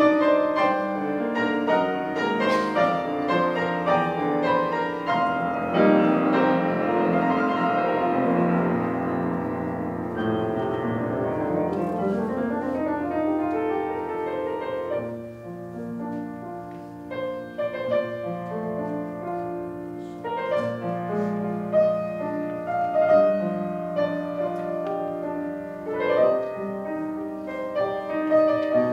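A grand piano being played: a piece of held chords and single notes, with a rising run of notes about ten seconds in.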